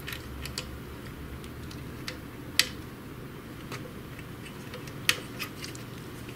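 Scattered light clicks and taps of small plastic wire connectors being handled and plugged into a Samsung ML-1210 laser printer's board, a few sharp ticks at irregular intervals over a low steady hum.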